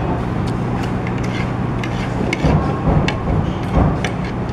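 Chopsticks and a ceramic soup spoon clicking and tapping now and then against a ceramic plate, over a steady low hum of background noise.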